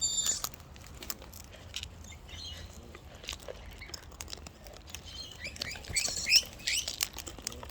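Wild parrots chirping, with a cluster of short rising calls about five to seven seconds in, over scattered light clicks and taps.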